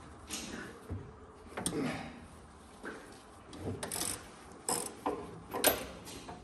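Metal hand tools and engine parts clinking and clanking irregularly, a dozen or so sharp knocks spread unevenly, the loudest late on, as bolts are worked loose on a T-34/85 tank's engine.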